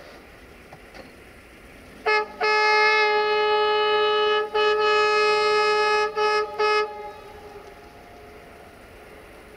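Diesel locomotive horn on a freight train: one short toot, two long blasts of about two seconds each with a brief break between, then two quick toots, all on one steady chord.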